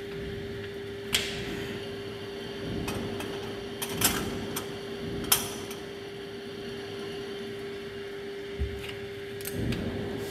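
Glass petri dishes set down on an incubator's metal wire shelves: a few sharp clinks and knocks, the loudest about four seconds in, over a steady hum.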